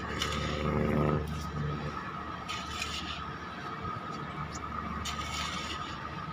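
Diesel dump truck running as it drives slowly past, over a steady low machinery hum with a faint high whine. A pitched engine note swells in the first second, and short hisses come about two and a half and five seconds in.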